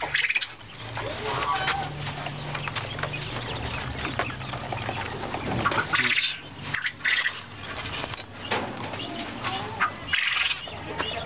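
Caged quail calling in a few short bursts, amid clicks and rattles of the wire cage and the eggs being handled.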